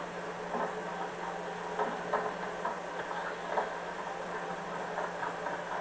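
The projected 16mm film's soundtrack playing back in the room, with no dialogue: a steady low hum under faint, irregular knocks.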